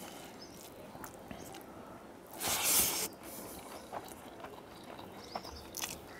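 Eating by hand from a steel plate: faint clicks and rustles of fingers mixing rice against the metal. About two and a half seconds in comes one loud breathy hiss, a sharp breath.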